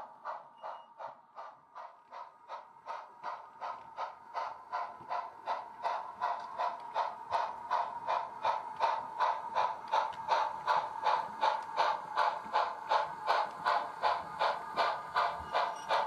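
Steam exhaust chuffs from the DCC sound decoder's speaker in a Bachmann 2-8-0 model locomotive, running as a steady beat of about three chuffs a second that grows louder as the model approaches.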